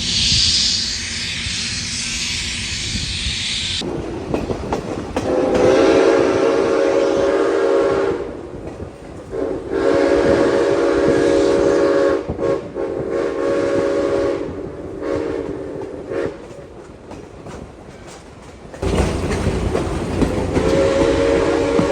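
Nathan six-chime steam whistle on Southern Railway 2-8-0 No. 630, blown in four blasts, each a rich chord of several tones; the last is still sounding at the end. A loud hiss of steam comes first, and a low rumble of the moving train comes in shortly before the last blast.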